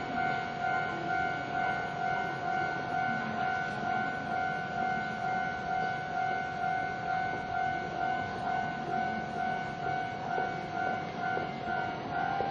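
Japanese level-crossing alarm bell ringing steadily with an even, repeating electronic ding, the warning that a train is approaching.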